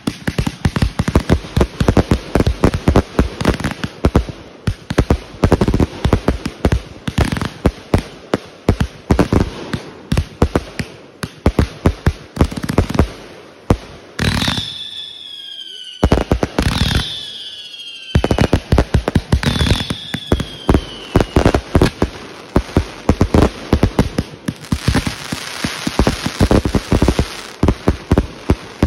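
Consumer aerial fireworks going off in a rapid barrage of bangs and pops. Around the middle, three shots carry whistles that fall in pitch, and the show thickens into dense crackling near the end.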